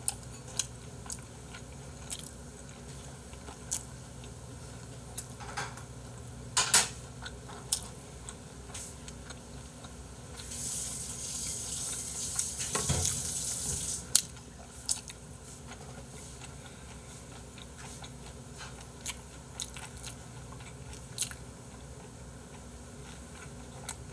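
A man eating with chopsticks: chewing and biting sounds with scattered light clicks of the chopsticks against the dishes. About ten seconds in there are a few seconds of steady hiss with a dull thump.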